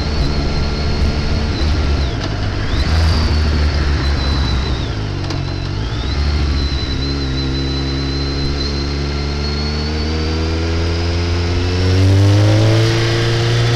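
Motorcycle engine running under way, with heavy rumble from wind on the camera's front microphone. In the second half the engine note rises steadily as the bike accelerates, getting louder near the end.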